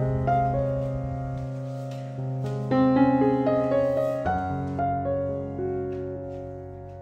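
Background instrumental music: a slow melody of held notes over a sustained low bass note.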